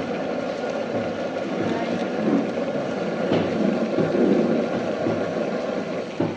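Steady rushing roar of a restaurant gas burner under a kadhai of prawn masala curry simmering and bubbling.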